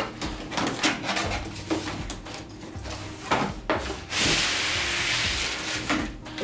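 A cardboard box and its packing being opened and handled: a string of short knocks and rustles, then an even scraping or sliding sound lasting about two seconds, starting about four seconds in.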